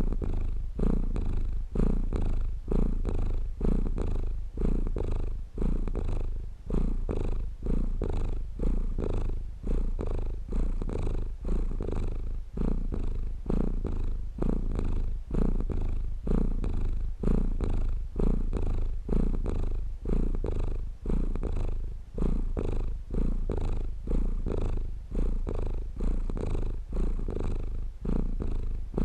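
Domestic cat purring steadily, in regular swells that rise and fall with each breath in and out.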